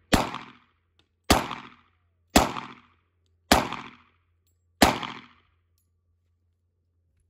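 Glock pistol fed from a 50-round drum magazine firing five slow, separate single shots about a second apart, each crack followed by a short echo. The shots stop about five seconds in.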